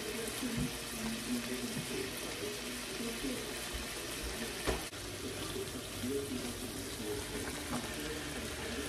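Chicken pieces frying in a skillet and ramen noodles boiling in a small pot: a steady sizzling, watery hiss, with one sharp knock about halfway through.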